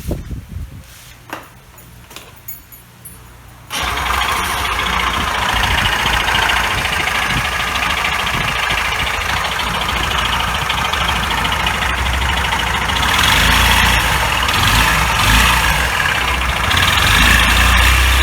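Kymco Racing G4 scooter's four-stroke single-cylinder engine starting about four seconds in after a few light knocks, then running steadily, with the revs raised a little twice.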